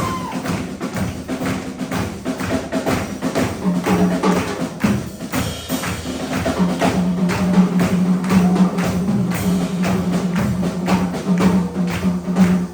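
Band playing an instrumental passage of a jazz-fusion song: busy drums and hand percussion over a held low note that sustains through the second half.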